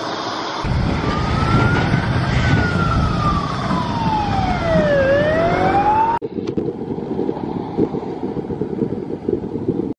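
Emergency vehicle siren wailing: one slow rise, a long fall and a rise again, over low street and traffic rumble. It cuts off abruptly about six seconds in, leaving a dull rumble of wind and traffic.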